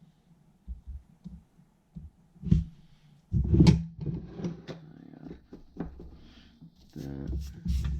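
Irregular knocks, clicks and rustles of soldering tools and small parts being handled on a workbench, loudest about three and a half seconds in and again near the end.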